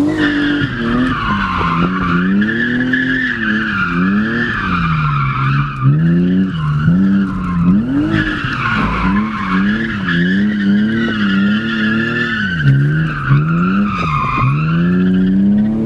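BMW E36 engine revving up and down again and again while the tyres squeal without a break as the car drifts. Heard from inside the cabin.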